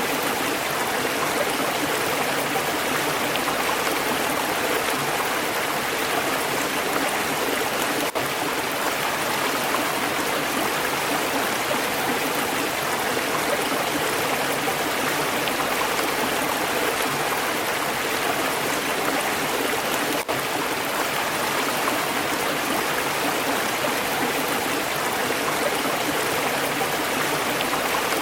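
Stream water flowing and babbling over stones in a steady, even rush, with two split-second dips, about eight and twenty seconds in.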